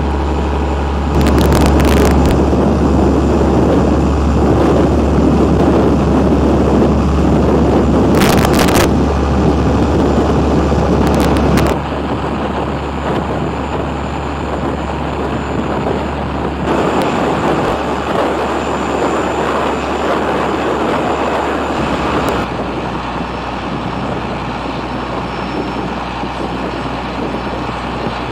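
Boat engine running with a steady low drone under the rush of water and wind on the microphone, with a few short crackles. It gets louder about a second in and eases a little about twelve seconds in.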